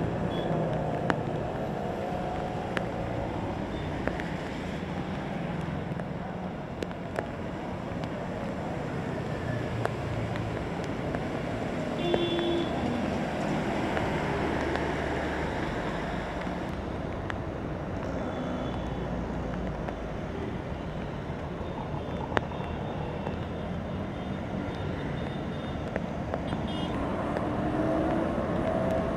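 Wet-road city traffic in steady rain: cars, motorbikes and autorickshaws passing with engine noise and tyre hiss on the water, under an even hiss of rain.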